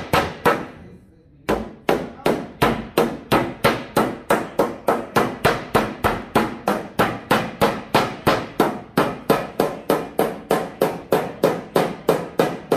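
Hammer blows on sheet metal, about three a second, folding the sheet down over the wooden edge of a homemade brake made from 2x4s. There is a brief pause about a second in, then the blows go on without a break.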